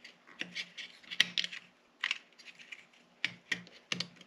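Irregular light plastic clicks and snaps from a seat heater switch's housing being worked apart by hand as its clips release, with a few heavier clicks near the end.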